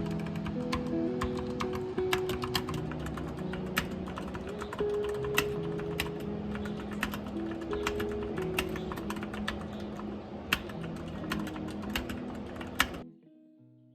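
Computer keyboard typing, irregular clicking keystrokes, over soft background music. Both cut off abruptly about a second before the end, leaving a few faint fading notes.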